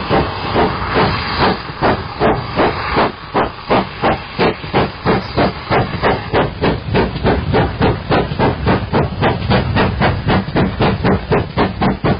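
Steam locomotive getting under way: a hiss of escaping steam at first, then steady exhaust chuffs at about three to four a second, quickening slightly toward the end.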